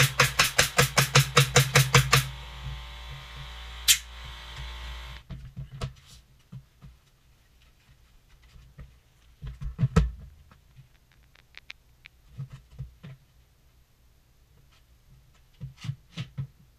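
Pneumatic tool on an air hose striking the plywood subfloor in rapid repetition, about six blows a second, stopping about two seconds in; a steadier noise follows for about three seconds. After that come scattered light knocks, with a louder cluster near ten seconds, as floor tiles are set down on the subfloor.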